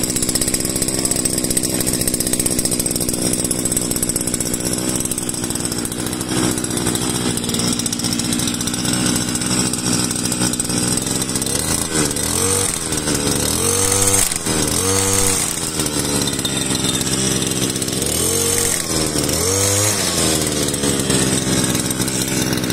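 Scheppach BCGT4250 brush cutter's 42.7 cc two-stroke engine running on its first start. In the second half it is revved up and let back down several times.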